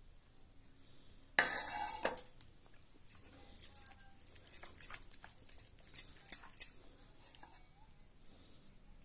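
Water poured briefly from a steel cup into a glass bowl of flour, then a steel spoon stirring the flour batter and clinking sharply against the glass bowl several times.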